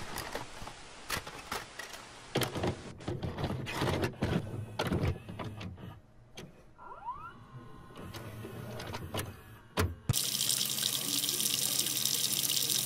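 A series of irregular clicks and knocks, then, from about ten seconds in, a steady hiss of tap water running into a sink.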